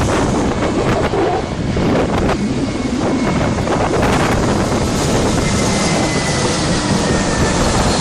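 Jet airliner on landing approach close by, its engines making a loud, steady rush, with a faint thin whine joining about five seconds in. Wind buffets the microphone.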